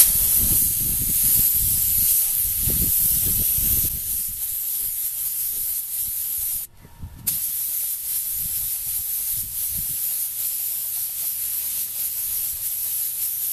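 Compressed-air paint spray gun spraying thinned latex house paint: a loud, steady hiss that breaks off briefly about seven seconds in, then resumes. The thinned paint sprays a bit sputtery.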